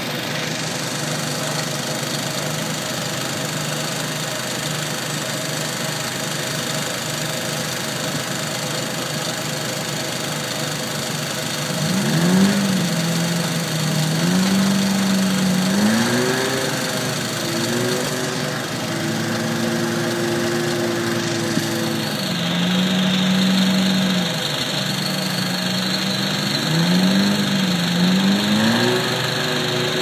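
Kenworth logging truck's diesel engine running steadily, then revving up and down again and again from a little before halfway through as it drives the hydraulic self-loading log crane.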